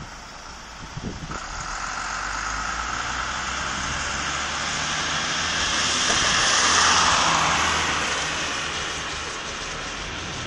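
A car passing close by on a wet road: the hiss of its tyres on the wet surface swells to a peak about two-thirds of the way through, then fades away.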